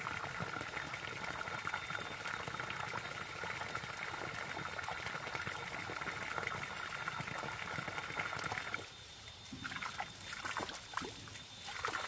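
Water trickling and splashing steadily, cutting off abruptly about nine seconds in. Then a few short rustles and steps in grass.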